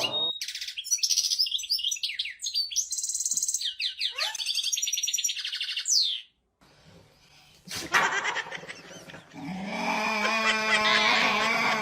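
Bird chirping in quick, high-pitched calls, cutting off about six seconds in. After a short silence come a click and a steady pitched sound near the end.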